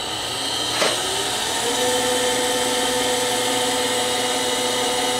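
Bridgeport milling machine's three-phase motor, fed by a variable-frequency drive, spinning up over about two seconds on the drive's programmed ramp, then running steadily with a steady whine. A short click comes about a second in.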